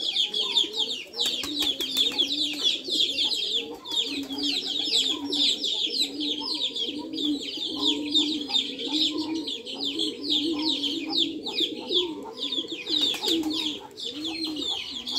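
Pigeons cooing in a low, repeating call about once or twice a second, over a steady stream of high, falling peeps from young chickens.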